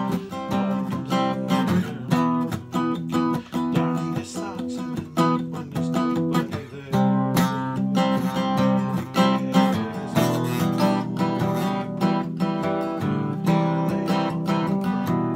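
Steel-string acoustic guitar strummed in a steady rhythm, the chords changing every few seconds.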